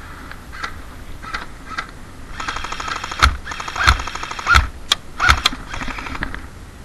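Airsoft electric rifle firing fast full-auto bursts, a rapid even clatter starting about two and a half seconds in and lasting some three seconds, with several sharp, loud cracks over it.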